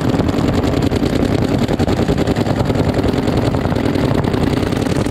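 Several paintball markers firing rapidly and continuously, the shots running together into a steady rattle.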